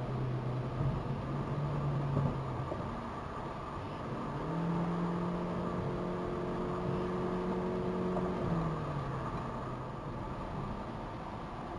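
Car engine and tyre road noise heard from inside the cabin at freeway speed. The engine note climbs about four seconds in, holds higher, and drops back about eight and a half seconds in.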